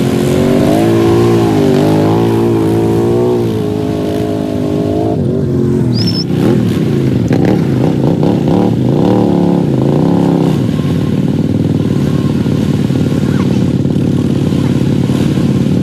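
ATV engines revving up and down in deep mud, a stuck quad's engine rising and falling in pitch. From about six seconds a second ATV engine joins, the two pitches sweeping and crossing each other, then both settle to a steadier run.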